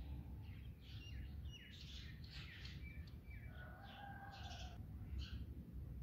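Several birds calling: a quick run of short chirps and downward-sliding notes, with a longer whistled note about halfway through, over a steady low rumble.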